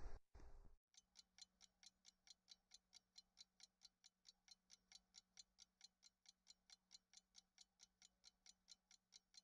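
Faint, fast, evenly spaced ticking like a clock, about four to five ticks a second, starting just after the outdoor sound cuts off sharply under a second in.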